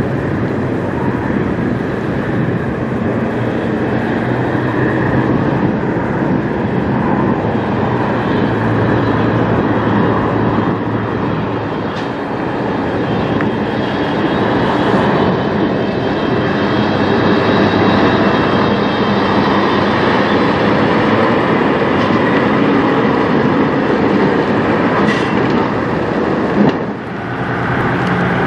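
Diesel engines of semi trucks running and pulling slowly through a lot, a steady low rumble. A single sharp click near the end.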